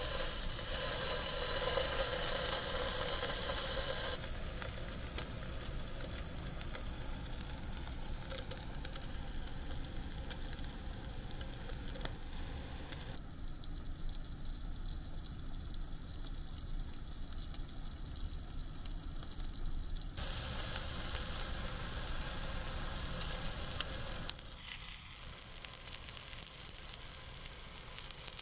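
Slices of beef tongue sizzling in a frying pan on a portable gas stove, loudest in the first few seconds as the meat goes into the hot pan. Partway through comes a quieter stretch of steady rain noise, then the frying sizzle returns.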